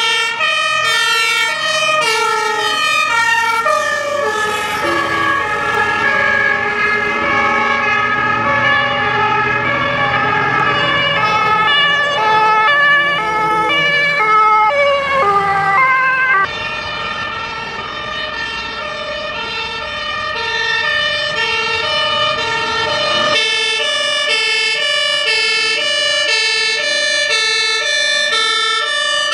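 Fire engine two-tone siren, alternating steadily between a high and a low pitch, with an engine rumble under it for a while. It breaks off abruptly about two-thirds of the way in and starts up again with a clearer, louder pattern.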